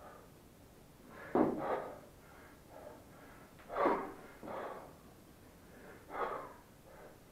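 Hard, forceful breathing of a man working a 28 kg kettlebell through one-arm long cycle: a sharp breath followed by a softer one, three times, about every two and a half seconds.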